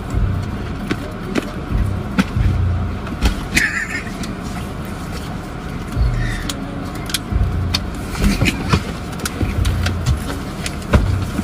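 Scuffling inside a car: irregular bumps, knocks and rustling from bodies, a bag and the handheld phone being jostled, over a steady low car hum.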